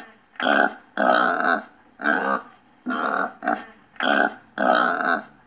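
Pig grunting in a series of about eight short, separate grunts, some a little longer than others.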